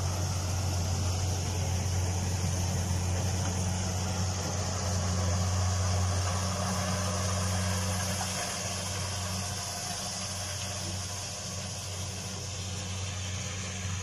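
Engine of a red corn harvesting machine running steadily: a constant low drone with a hiss above it, easing slightly about eight seconds in.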